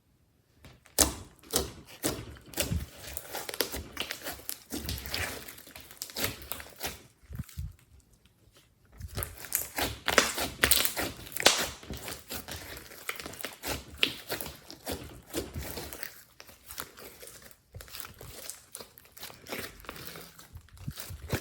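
Glossy slime being squished and stretched by hand, giving irregular sticky crackles, pops and clicks, with a short pause about eight seconds in.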